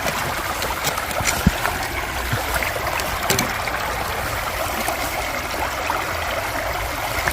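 Shallow stream water flowing steadily over stones, a continuous babbling rush.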